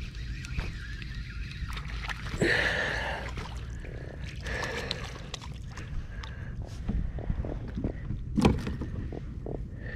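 Water splashing and sloshing at a plastic fishing kayak's hull, with scattered knocks and clatter on the hull and a louder sharp knock about eight and a half seconds in.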